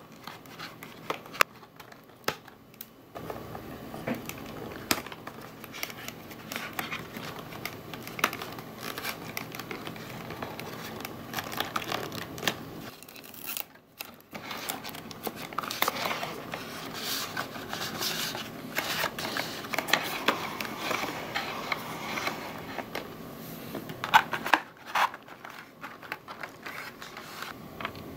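Thin printed cardboard of a paper-craft bingo drum being handled and fitted together: rustling and scraping of card, with small clicks and taps as a plastic axle and handle are pushed into the cardboard frame.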